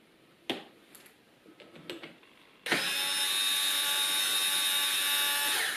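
Power drill spinning a socket to back out a motorcycle front-sprocket bolt that has already been loosened by hand, running steadily for about three seconds. A couple of light clicks of metal come before it.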